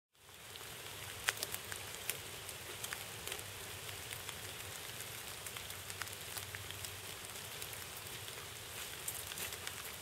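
Light rain pattering on grass and field stubble: a steady hiss with scattered sharp ticks of single drops.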